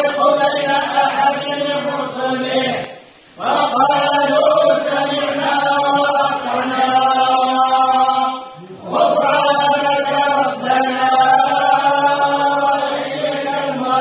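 A group of men's voices chanting together in unison, in long held phrases with short breaks for breath about three seconds and eight and a half seconds in.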